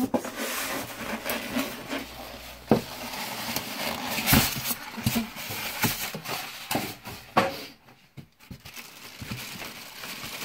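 Cardboard box and plastic wrapping being handled as a boxed waffle maker is unpacked: irregular rustling and scraping with a few sharper knocks, the loudest a little over four seconds in.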